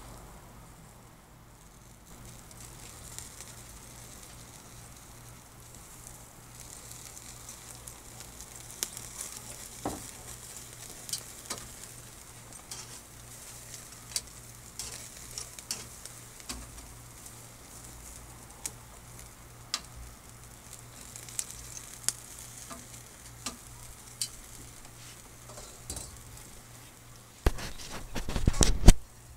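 Lobster tails and vegetables sizzling on a wire grill grate over charcoal, a steady hiss dotted with small crackles and pops. About two seconds before the end comes a loud knock, then a second of louder rustling noise.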